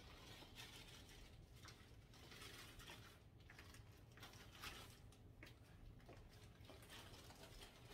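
Near silence: faint, irregular soft footsteps and rustling of handled fabric or paper over a low steady room hum.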